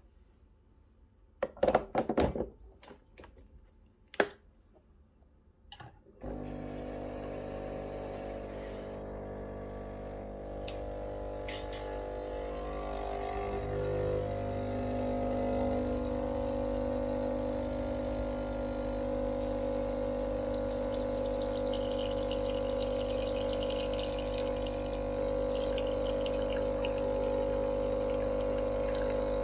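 A few clicks and knocks, then about six seconds in the Breville Barista Pro's vibratory pump starts and runs with a steady hum, a little louder from about halfway through, as it pushes water through the pressurized dual wall basket to pull an espresso shot.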